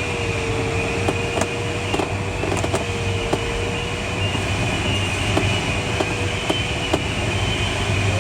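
Steady rush of airflow inside the cockpit of a Schleicher ASK21 glider in flight, with the variometer's single electronic tone held throughout and wavering slightly in pitch. Faint scattered ticks sit under it.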